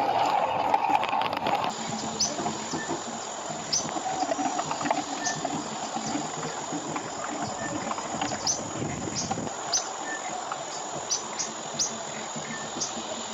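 Outdoor ambience: a steady hiss with many short high chirps scattered through it, and a louder rush of noise in the first second or so.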